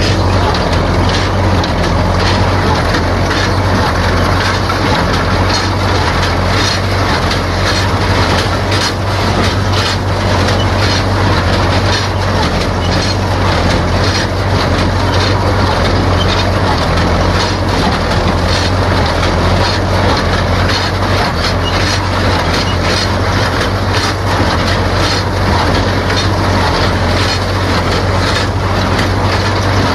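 Utility tractor engine running steadily under load as it pulls a small square hay baler, with the baler's mechanism clattering continuously over the engine hum.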